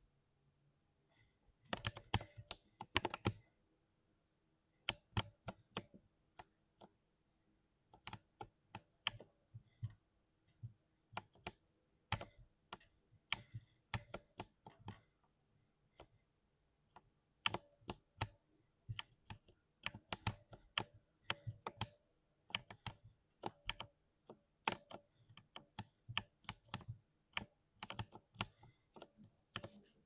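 Keys of a 60% mechanical keyboard pressed one by one with a single finger: sharp keystroke clacks in short runs, broken by pauses of a second or two.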